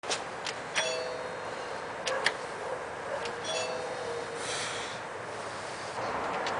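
Doorbell chime rung twice, about a second in and again a couple of seconds later, with a few sharp clicks between the chimes.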